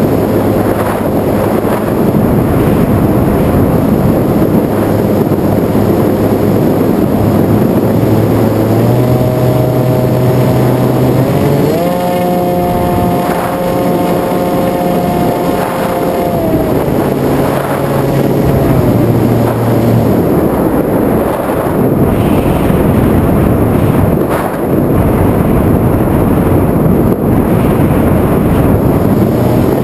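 FPV aircraft's motor and propellers running in flight under heavy wind rush on the microphone. The motor pitch steps up and down several times as the throttle changes, highest in the middle.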